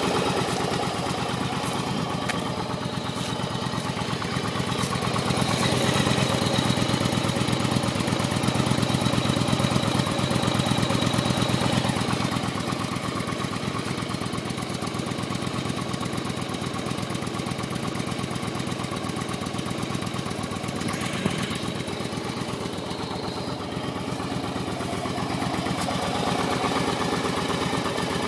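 Yamaha Virago 1100's air-cooled V-twin engine idling, with a knocking sound in its running. It runs a little louder for several seconds near the start, then settles to a steady idle, with one sharp tick about two-thirds of the way through.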